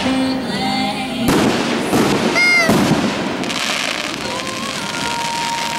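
Aerial fireworks going off: a sharp bang about a second in, then more bursts and crackling, with voices and sustained tones underneath.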